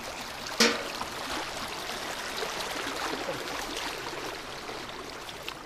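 Water running fast through a narrow channel off a flooded rice paddy, a steady rushing and trickling. About half a second in there is a single sharp knock, the loudest thing heard.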